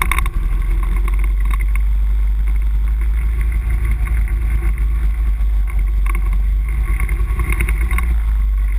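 ATV engine running steadily as the machine rides along a dirt trail, with heavy low rumble from wind buffeting the on-board microphone and scattered rattles and clicks from the bumpy ride.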